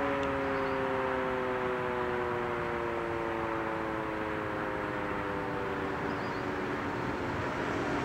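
American Signal OM-120 outdoor warning siren winding down at the end of its Alert test signal: its chord of tones sinks slowly and steadily in pitch and fades gradually, over a steady background noise.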